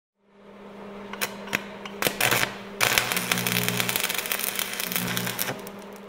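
Intro logo sound effect: a steady low hum overlaid with crackles and rushes of glitchy static, thickening from about three seconds in with a deeper drone beneath. It fades in at the start and fades out at the end.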